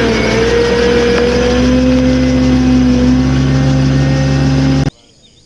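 An engine running at a steady speed, its pitch dipping slightly at first and then holding. It cuts off abruptly near the end.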